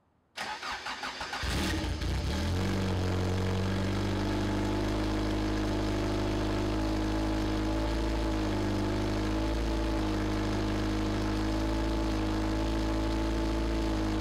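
1985 Toyota MR2 (AW11)'s four-cylinder engine cranked on the starter for about a second, catching and settling into a steady idle.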